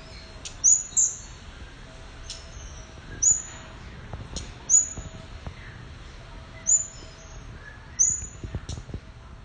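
Sooty-headed bulbul (chim ốc mít) giving short, sharp, high chirps, about ten of them, roughly one every second, over a low background rumble.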